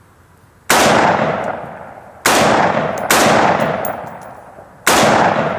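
AR-15 rifle firing 5.56/.223 rounds semi-automatically: four single shots at uneven intervals, each followed by a long fading echo.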